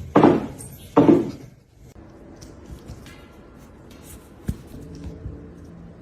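A cat meowing loudly twice in quick succession, about a second apart, then falling quiet. A single sharp knock comes about four and a half seconds in.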